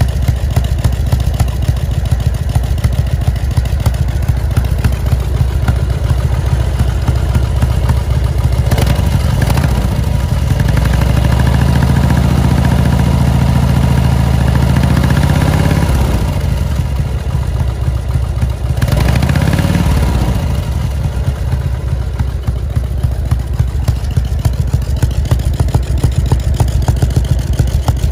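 1997 Harley-Davidson Dyna Super Glide's Evolution V-twin running through its chrome exhaust. It idles, is revved up about a third of the way in and held higher for several seconds before dropping back, gets one more short blip a little later, then settles to idle again.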